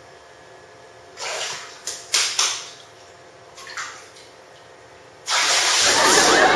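Bathwater splashing in a small tub: a few short splashes about a second in and another near four seconds, then loud continuous splashing from about five seconds in.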